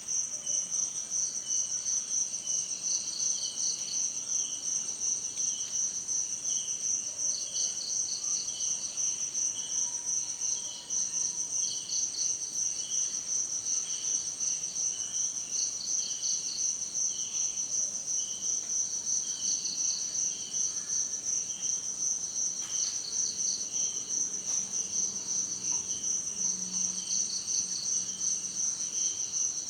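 Chorus of crickets and other insects: a continuous high, pulsing trill with further trills and short repeated chirps coming and going over it.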